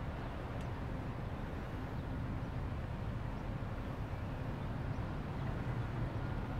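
Steady low rumble of a bicycle rolling along a paved bike path, with a few faint ticks.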